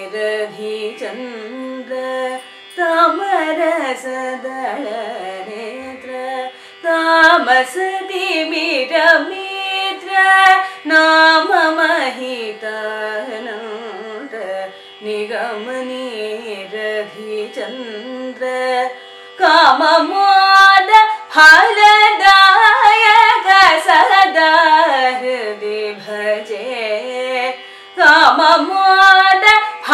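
A woman singing a Carnatic kriti in raga Abhogi over a steady drone. Her phrases are heavily ornamented with gliding notes and are broken by short pauses, growing louder and fuller about two-thirds of the way in.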